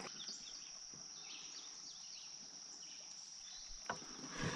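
Faint outdoor ambience: a steady high-pitched insect drone, with a few short falling bird chirps in the first second or so and a light click near the end.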